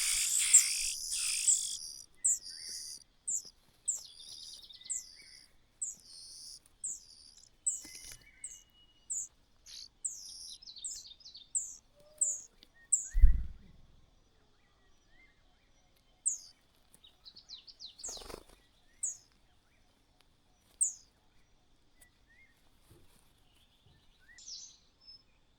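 Small bird chirping: a run of short, high, downward-sliding chirps about two a second, thinning out to scattered chirps in the second half. A low thump about halfway through and a sharp knock a few seconds later.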